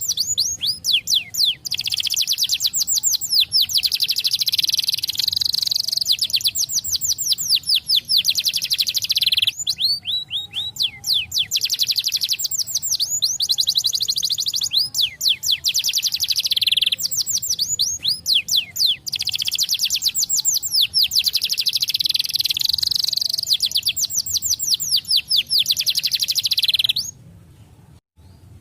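Domestic canary singing: long phrases of rapid, evenly repeated trill notes, one after another with brief breaks, breaking off near the end.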